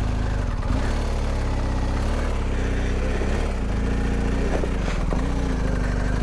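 BMW GS motorcycle's boxer-twin engine running at a low, steady idle, with small rises and dips in revs around the middle.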